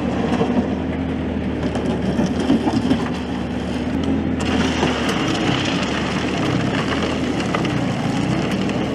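Front-end loader's diesel engine running steadily under load as the bucket is driven into a pile of crushed stone; from about four seconds in, the scrape and rattle of gravel filling the bucket joins the engine.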